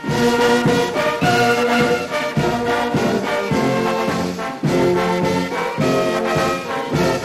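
Instrumental music led by brass, playing a rhythmic run of chords that starts abruptly.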